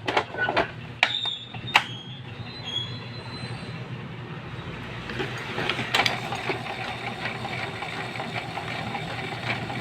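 Epson L120 inkjet printer starting a print: a few sharp clicks in the first two seconds, then the paper-feed roller and print mechanism run steadily, now turning freely after a stuck gear was freed.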